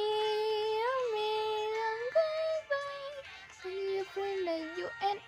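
A song with a high, childlike singing voice: one long held note for about two seconds, then a few shorter notes stepping down in pitch.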